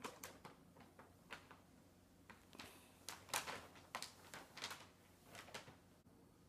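Brown paper grocery bag crinkling and rustling in faint, irregular crackles as a cat moves around inside it.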